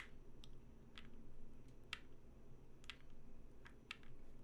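Mechanical keyboard built with Durock POM linear switches, pressed a few keys at a time: about ten soft, scattered clacks at an uneven pace as the board is pushed to show its plate flex.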